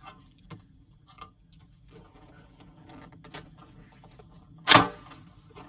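Scattered light clicks and handling noises, then one sharp, loud knock nearly five seconds in.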